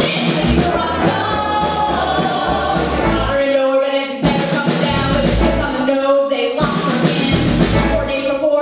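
Singers performing a stage song over instrumental backing with bass; the voices hold long notes about three and a half and six seconds in.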